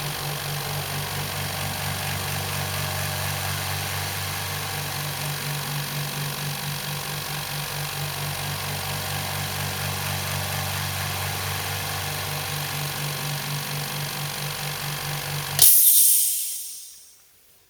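Rocwood 50-litre, 2 hp oil-free air compressor running steadily with a fast, even pulsing hum as it pumps up its tank. About 15.7 s in the pump cuts out at full pressure, and air hisses out of the pressure relief valve, fading away over about two seconds.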